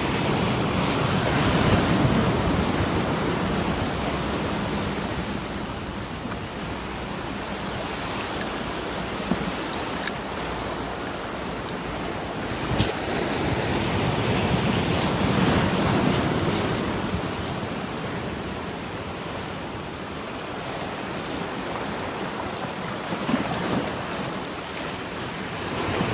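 Big sea swells breaking and surging over rocks, building to a peak about two seconds in and again around the middle. There are a few short clicks partway through.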